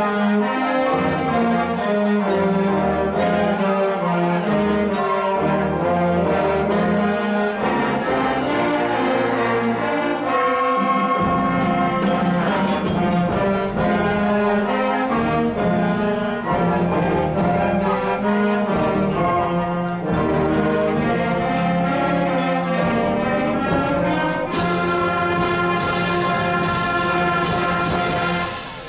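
A middle-school concert band of woodwinds, brass and percussion plays a piece with full, held chords. A run of sharp percussion strokes comes near the end.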